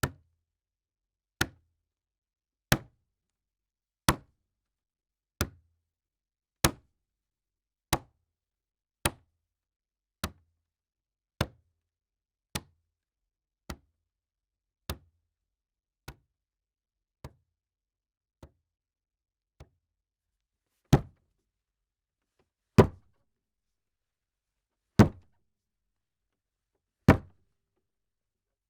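Repeated single slams on a table, each a sharp hit with a short low thud, about one every 1.3 seconds. They grow softer around the middle, then four louder slams come about two seconds apart near the end.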